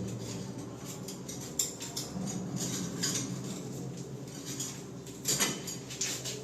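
Light clinks and scrapes of hand tools at work on a pipe fitting, in irregular short ticks, loudest about five seconds in.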